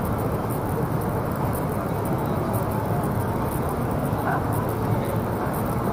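Steady outdoor city ambience: an even low rumble of distant traffic and city hum, with faint voices of people nearby.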